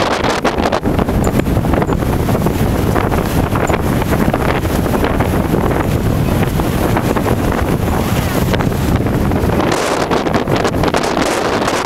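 Strong blizzard wind buffeting the microphone: a loud, continuous rumble with crackling gusts.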